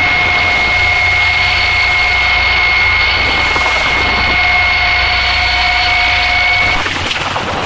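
Harsh noise music: a loud, dense wall of hiss with two steady piercing tones and a low hum beneath, the tones and hum cutting off near the end.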